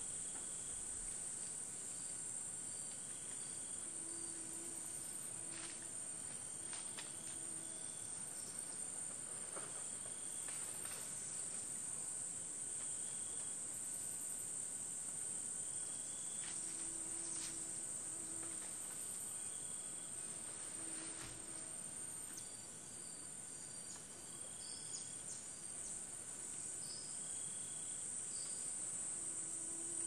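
Rainforest insect chorus: a steady, high-pitched cricket-like trill, with faint short calls recurring now and then.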